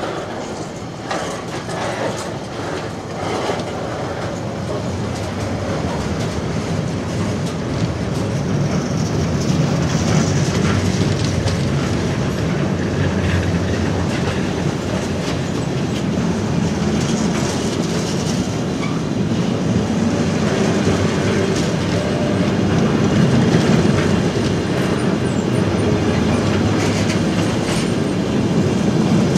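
Container flat wagons of a freight train rolling past: a steady rumble of steel wheels on the rails, with clicking over the rail joints that is most marked in the first few seconds.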